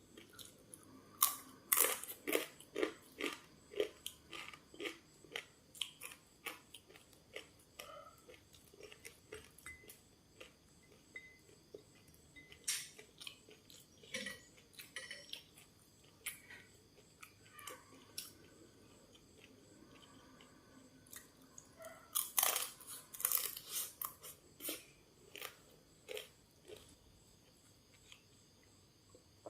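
A person chewing and crunching crisp food at close range, with dense runs of crunchy bites about a second in and again about 22 seconds in, and sparser chewing between.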